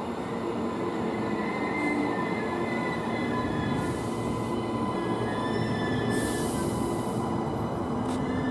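Queensland Rail NGR electric train pulling in along the platform and growing slightly louder as it comes alongside: a steady rail rumble with high squealing tones, and two short hisses about 4 and 6 seconds in.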